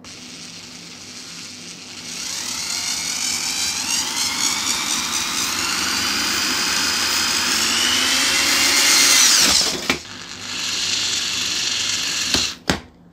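iBELL IBL SD10-85/86 electric screwdriver driving a Phillips screw into thin plywood: the motor whines and rises in pitch for about ten seconds, stops, runs again for a couple of seconds, and ends with two short spurts as the screw seats.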